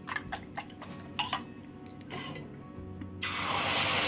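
Light taps and clinks of a utensil on a pan or bowl while eggs are being made. About three seconds in, a loud steady sizzle starts suddenly as the egg goes into the hot pan.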